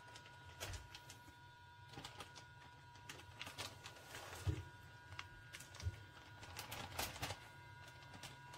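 Plastic zip-top bags crinkling and rustling, with scattered light clicks and knocks against a plastic sous vide container and its rack as bags of steak are lowered into the water bath. A louder knock comes about halfway through, over a faint steady hum.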